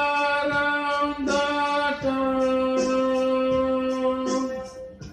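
Man singing while accompanying himself on a Casio electronic keyboard, holding one long note through the second half that fades out near the end.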